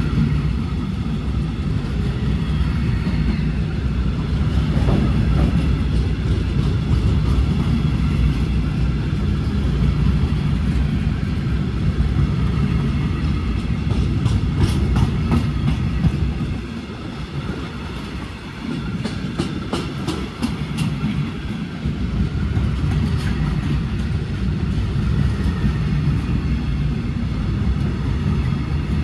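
Freight train of silo tank wagons rolling past close by: a steady rumble of wheels on rail, with clusters of sharp clicks from the wheels twice around the middle. The rumble dips for a few seconds just past the middle, then returns.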